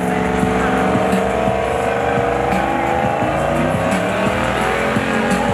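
Ram 1500 pickup doing a burnout: the engine is held at high revs, its pitch wandering up and down, and the spinning rear tyres squeal.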